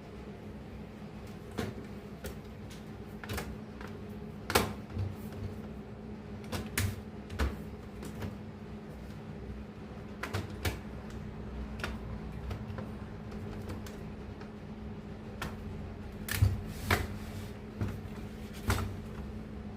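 Irregular clicks and knocks of a printer's parts being handled and worked on, over a steady low hum.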